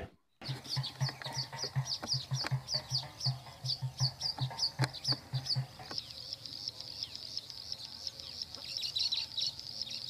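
Male baya weaver singing: a rapid series of short, high chirps, about four a second, then from about six seconds in a drawn-out high note.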